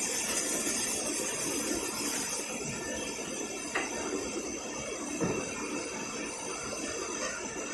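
Steady hissing, crackly machine noise with a couple of faint clicks; the high hiss drops a little just over two seconds in.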